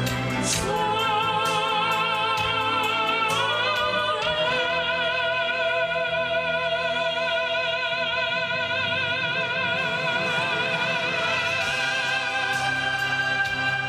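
Operatic singing with orchestra: a solo voice holds long notes with a wide vibrato, stepping up in pitch about half a second in and again around four seconds in, then sustaining one high note almost to the end. Heard from far back in an open-air crowd.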